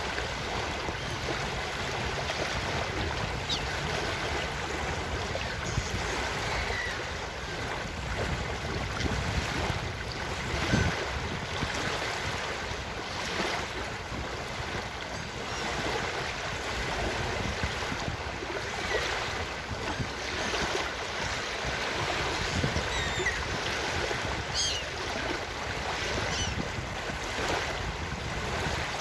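Ocean surf washing steadily on a beach, with a few short seagull calls heard above it now and then, most of them near the end.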